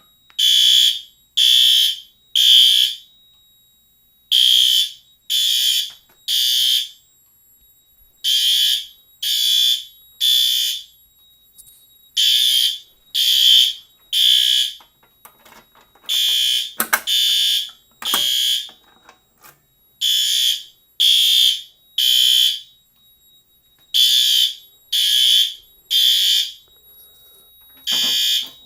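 A battery-powered smoke alarm sounding its high-pitched evacuation beep in the temporal-three pattern: three beeps about a second apart, then a pause, repeating about every four seconds.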